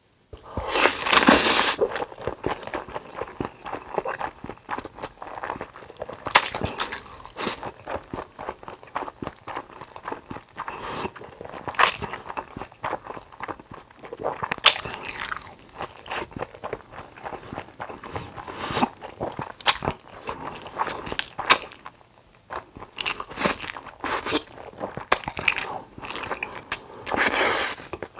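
Close-miked eating: a person biting and chewing food with crunchy, wet clicks, in irregular bursts, loudest near the start and again near the end.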